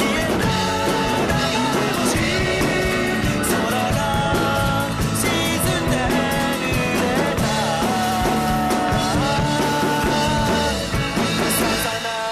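Background music: a band song with drums and a singing voice, playing steadily, with a brief dip just before the end.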